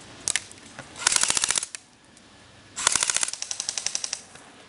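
Airsoft rifle firing rapid bursts: a single shot just after the start, then two bursts of about half a second each, about one second and about three seconds in, at roughly fifteen to twenty shots a second.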